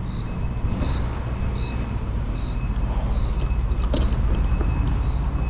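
Steady low hum of an idling vehicle engine, with faint short high beeps repeating about every three-quarters of a second.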